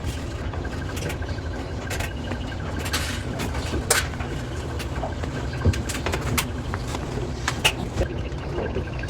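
A washing machine running with a steady low rumble, with scattered clicks, knocks and rustling as laundry is handled.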